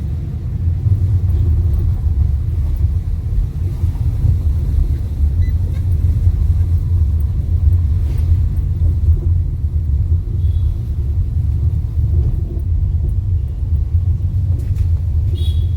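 Inside a moving Fiat Linea: steady low road and engine rumble fills the cabin, with faint intermittent squeaks and rattles from the dashboard, the noise the owner wants a service center to look at.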